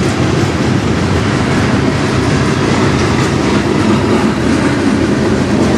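Freight cars of a CN manifest train rolling past close by: a loud, steady rumble of steel wheels on the rails.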